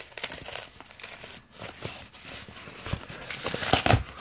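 Cardboard shipping box being torn open along its perforated tear strip: a continuous ripping of card, with small sharp cracks, getting louder and harsher near the end.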